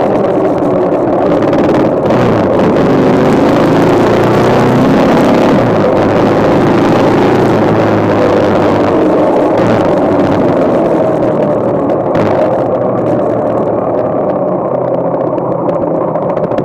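Yamaha XT motorcycle engine running under way, with wind and road noise over it. The revs ease off in the second half as the bike slows.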